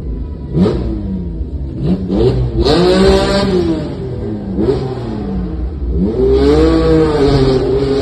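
Lancia Stratos HF Group 4's Ferrari Dino V6, heard from inside the cabin, revving up and dropping back several times in short pulls. Longer, higher pulls come about three seconds in and again from about six seconds in.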